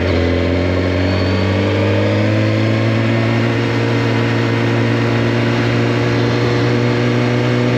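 2014 Suzuki GSX-R1000's inline-four engine running under way, its pitch rising slightly over the first couple of seconds and then holding steady at a cruise, over a constant rush of noise.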